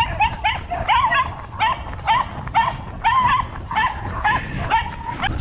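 A dog yipping and yelping in a rapid, high-pitched series, about three yelps a second without a break: the eager whining yelps of a dog keyed up to run before a canicross start.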